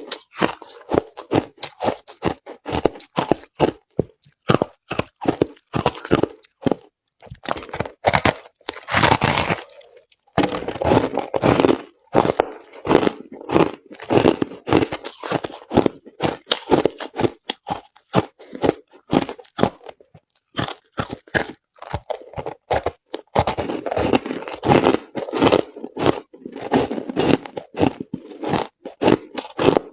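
Crushed ice being chewed close to the microphone: a rapid, irregular run of loud crunches, with a brief pause about ten seconds in.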